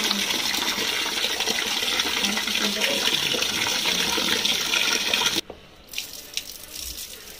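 Tap water running hard into a metal pot of rice while a hand stirs and rubs the grains. About five seconds in the gush stops abruptly, leaving a quieter trickle as the cloudy wash water is poured off the rice.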